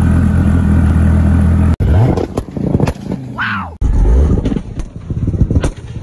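Twin-turbocharged V10 supercar engines in a run of short clips: a loud, steady, deep idle that cuts off abruptly, then engine revs rising and dropping back, with a short high whine that rises and falls near the middle.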